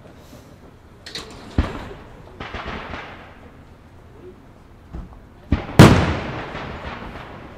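Fireworks display: a series of separate bangs and thuds from shells and comets, with the loudest bang about six seconds in, trailing off over a second and a half.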